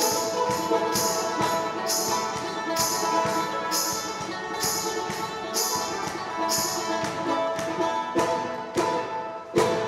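Banjo played fast and hard, with a bright jingling percussion hit on about every beat. It closes with a few heavy strums near the end, the last one ringing out as the tune finishes.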